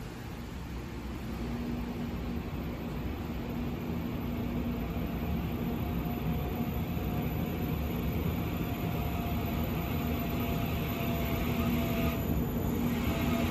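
Taiwan Railway EMU900 electric multiple unit pulling out of the station past the platform: a steady electric hum with running noise that grows louder as the cars roll by.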